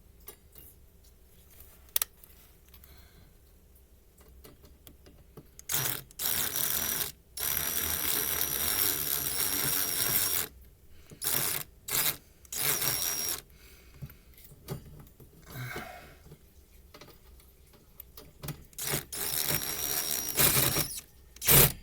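Impact driver running in several short spurts of one to three seconds each as it drives screws into the fan guard, with a thin high whine in the longest run.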